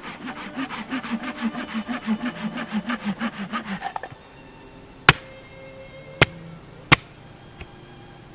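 Small wood saw cutting through a branch in quick strokes, about five a second, for about four seconds, preparing wood for a campfire. Three sharp, loud cracks follow.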